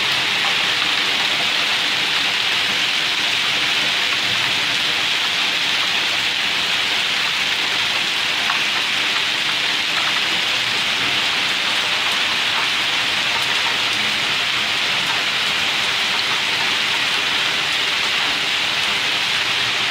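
Hail storm: hailstones and rain pelting the ground in a steady, dense patter, with scattered sharper ticks.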